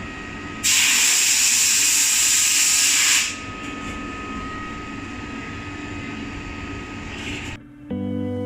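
A loud, even hiss lasting about two and a half seconds, like air or spray from a nozzle, followed by a quieter steady background noise. Music starts near the end.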